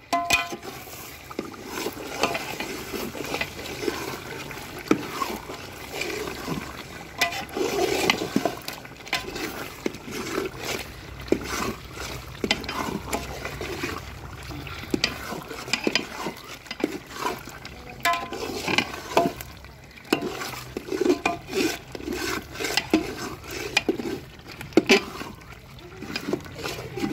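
A spatula stirring meat through thick masala gravy in a large aluminium pot: wet squelching and scraping with frequent irregular clacks of the spatula against the pot. The meat is being fried down (bhuna) in its masala.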